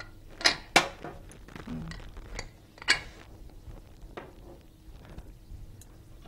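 Sharp metal clinks as the lid of a stainless-steel pressure cooker is handled for opening, three loud ones in the first three seconds, then a few light taps. The cooker has had its steam let out and is ready to open.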